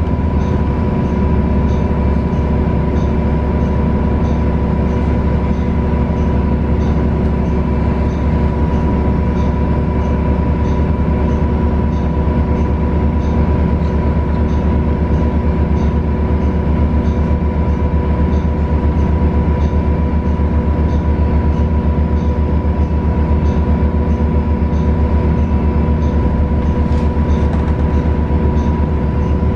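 A 2019 Nova Bus LFS's Cummins L9N natural-gas engine and Voith transmission heard from inside the moving bus: a steady low drone with a steady whine on top. A light, regular ticking sounds about one and a half times a second.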